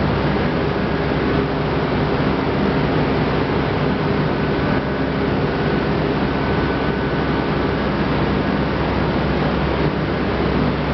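Steady drone of running factory machinery: a hum of several steady tones over an even rush of noise.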